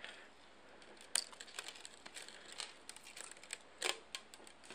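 Faint handling noise of a fishing hook being slid along a monofilament leader by hand: soft rustles and small scattered clicks, with a couple of sharper ticks about a second in and near the end.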